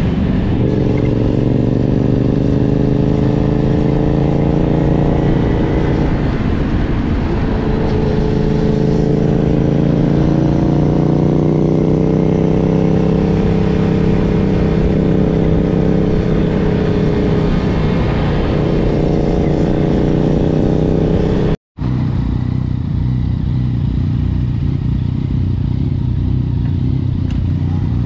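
Motor scooter engine running while riding, its pitch rising and falling with the throttle and speed, over a steady rush of wind and road noise. The sound cuts out for an instant near the end, and a steadier, lower engine hum follows.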